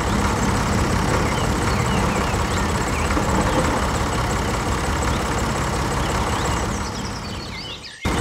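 Steady engine-like running with a low rumble and a few faint high chirps over it. It sinks near the end and then cuts off abruptly.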